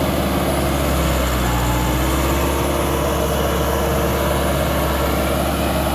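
Massey Ferguson 385's four-cylinder diesel running steadily under load at about 2000 rpm in fourth low, pulling a tiller through dry soil, as the new tractor is run in.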